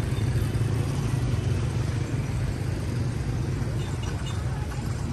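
Motor vehicle running with a steady low drone and road noise.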